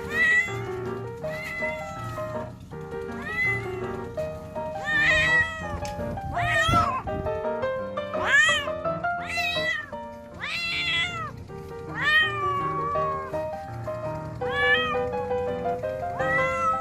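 Feral cat meowing loudly over and over, about a dozen meows each rising then falling in pitch, over background music with held notes.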